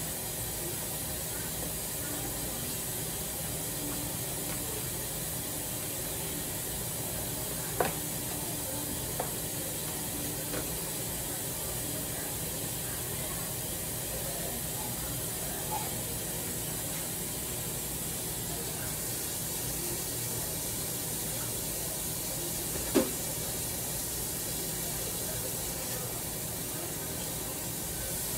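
Steady hiss from the stove, where a large pot is steaming, broken by two sharp knocks, the second one louder, near the three-quarter mark.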